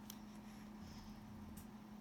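Near silence: room tone with a steady low hum and a couple of faint clicks.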